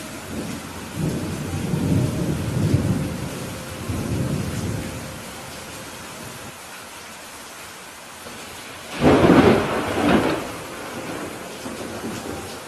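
Steady rain on a roof with thunder: a low rolling rumble over the first few seconds, then a loud, sharp thunderclap about nine seconds in that fades over a second or so.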